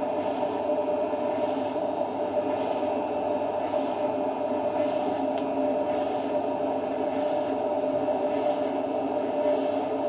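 Indesit IWD71251S washing machine running steadily on its service test cycle: a continuous rumble with a steady hum.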